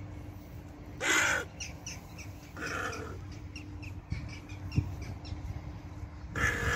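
Hooded crow cawing: three calls, one about a second in, a fainter one near three seconds, and another near the end.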